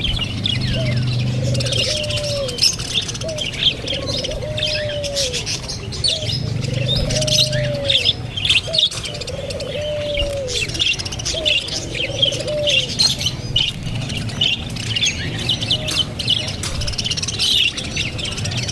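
Many birds chirping and twittering together in a busy, high-pitched chorus. A lower, arched call repeats about every second and a half through the first two-thirds.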